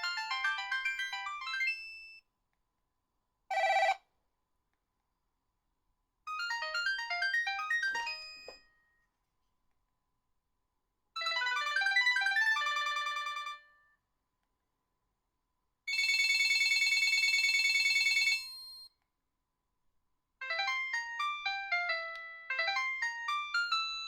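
HTC Faraday (Cingular 2125) phone ringtones previewed one after another: six short electronic melodies, each cut off after a second or a few seconds, with pauses between them. One of them, about two-thirds of the way in, is a steady ringing tone rather than a tune.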